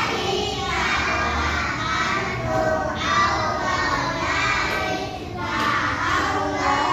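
A group of young children singing together, many voices overlapping.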